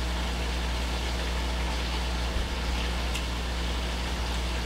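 A steady low hum under an even hiss, with a faint tick or two in the middle.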